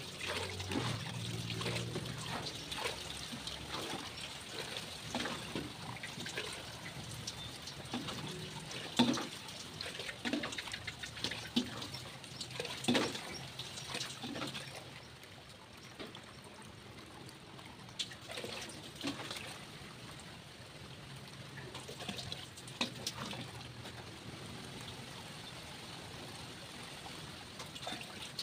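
Water splashing and trickling as a plastic dipper scoops and pours water in a stainless steel basin, with scattered splashes and knocks that thin out after the first half.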